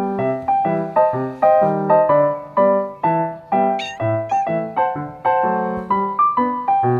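Background piano music with evenly paced notes; about four seconds in, a kitten gives two short, high mews over it.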